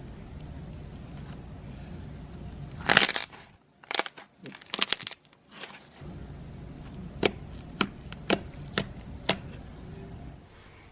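Hands squishing and pressing homemade slime for ASMR: a loud squelch about three seconds in, a flurry of crackling pops a second later, then five single sharp clicks of trapped air popping about half a second apart, over a faint steady low hum.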